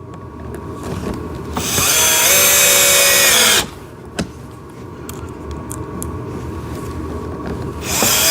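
Cordless drill driving a small screw into plastic: the motor winds up and runs at a steady whine for about two seconds, then stops, followed by quieter handling noise.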